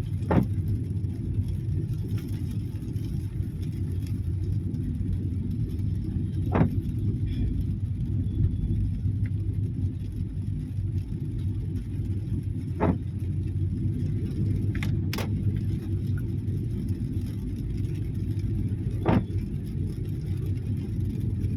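Car running on a wet road, heard from inside the cabin: a steady low rumble of engine and tyres. A short knock repeats about every six seconds, with a brief double click about two-thirds of the way through.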